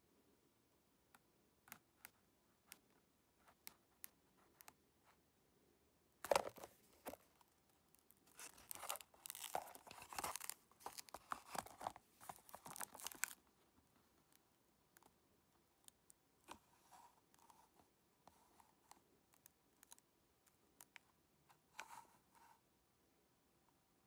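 Close handling noise of cardboard and paper: a sharp rustle about six seconds in, then several seconds of crinkling and rustling, with scattered faint clicks elsewhere.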